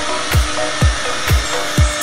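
Background electronic music with a steady kick-drum beat, about two beats a second, and held synth notes. Under it runs the steady hiss of a CNC router's spindle cutting particleboard.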